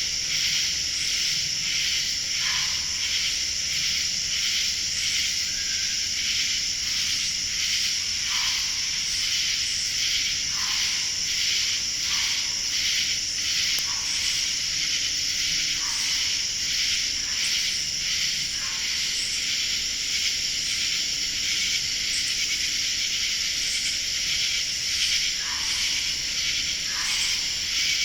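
Night-time animal calls from an unidentified source: a steady, high, shrill chorus pulsing rapidly, with short falling calls repeating every one to two seconds.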